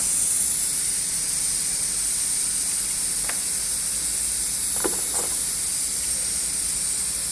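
Steady high-pitched hiss with a faint low hum underneath, broken by a few faint clicks around the middle.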